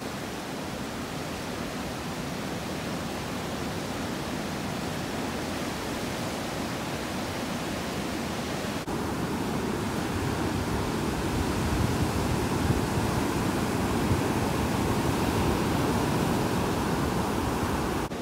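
Ocean surf breaking and washing up a pebbly beach: a steady rushing hiss, which gets louder and fuller about nine seconds in.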